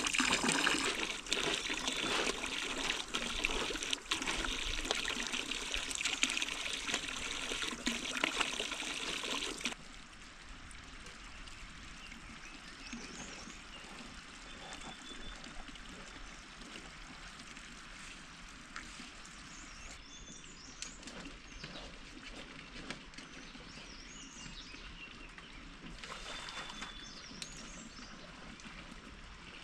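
Water running or pouring steadily for about ten seconds, then stopping abruptly. A quieter background follows, with a few faint high chirps, likely birds.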